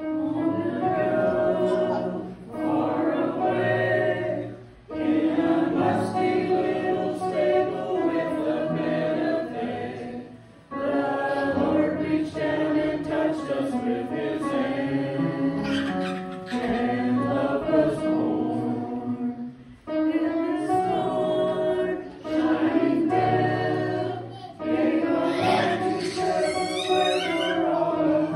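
A small mixed choir of men's and women's voices singing a song in phrases, with short breaks between them.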